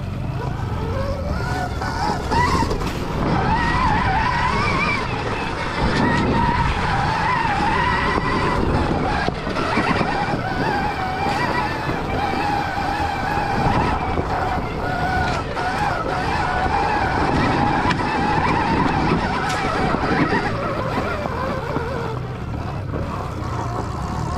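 Stark Varg electric dirt bike riding at speed: the electric motor's whine wavers up and down in pitch with the throttle, over a steady rumble of tyres on a rocky, leaf-covered trail and wind on the microphone.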